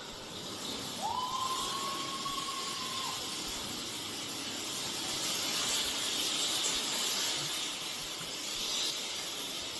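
A steady hissing noise, with a single steady whistle-like tone that sounds for about two seconds starting about a second in.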